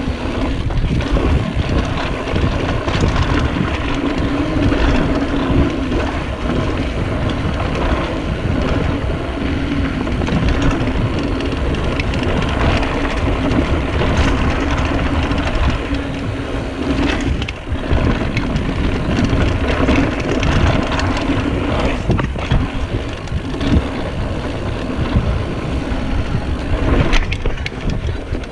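Wind rushing over the camera microphone as a Diamondback mountain bike rolls fast down a dirt trail, with tyres on packed dirt, a low rumble from the rough ground and the odd knock and rattle of the bike over bumps.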